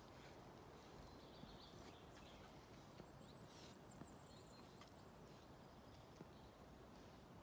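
Near silence: a wild boar piglet rooting in dry soil, heard only as a few faint scattered clicks over quiet outdoor background, with a faint high chirp near the middle.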